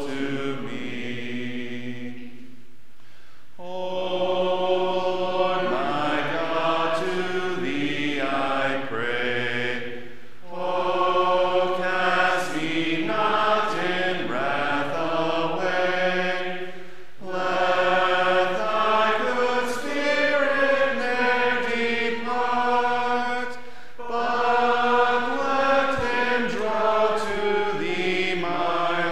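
A church congregation singing a hymn a cappella, in sung lines of about seven seconds each with a short breath between lines.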